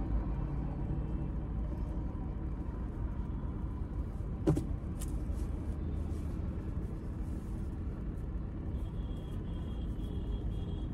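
Steady low rumble of a car, heard from inside its cabin, with a single short click about four and a half seconds in.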